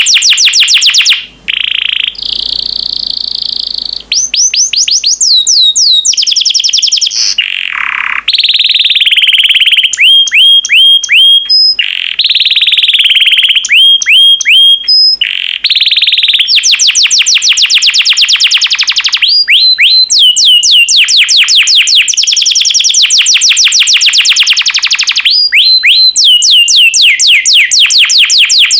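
Yellow domestic canary singing a loud, continuous song of fast trills: runs of rapidly repeated falling notes alternating with buzzy rolls, with a few brief pauses.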